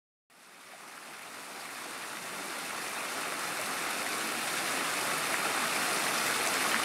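Fountain water falling and splashing into its stone basin: a steady rush that fades in just after the start and grows gradually louder.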